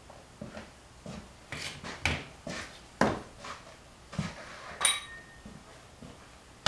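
Irregular metallic clinks and knocks of hand tools and engine parts being handled, the sharpest about three seconds in and just before five seconds, the second one ringing briefly.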